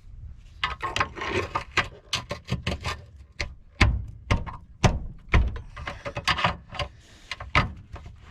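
Metal parts and hand tools being handled: a quick, irregular run of clicks and clinks, with a few heavier thuds about four to five and a half seconds in.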